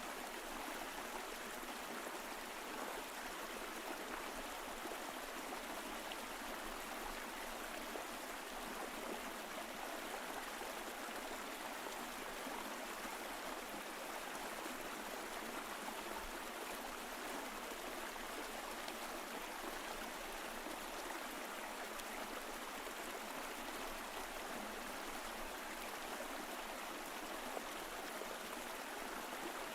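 Mountain stream flowing: a steady rush of running water that stays even throughout.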